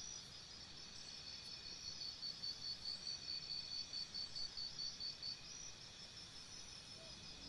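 Faint chirping of crickets or similar insects: a steady, high trill that pulses about four times a second.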